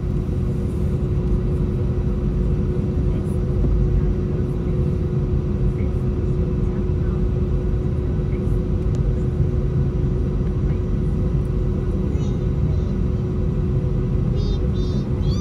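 Airbus A320 with its engines running: a steady, even rumble with a constant hum underneath.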